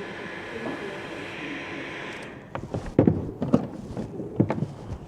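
Hot air gun blowing steadily while shrinking heat-shrink tubing on the cable lugs, cutting off a little over two seconds in. It is followed by a run of sharp knocks and clatters as the cables and tools are handled and put down.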